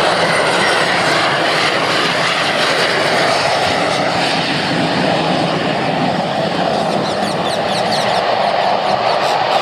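Jet engines of an Air India Express Boeing 737 running at power on the runway, a loud, steady rush of noise that holds even without rising or falling.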